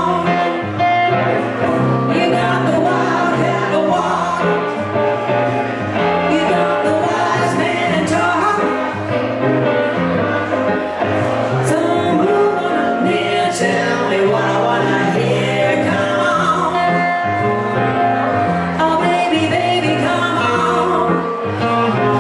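Live band music: singing over acoustic-electric guitar and keyboard, played through a PA.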